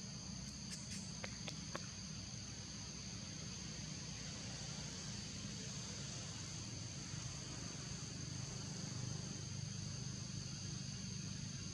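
Steady chorus of insects in the forest canopy, two unbroken high-pitched tones over a low background rumble, with a few faint clicks about a second in.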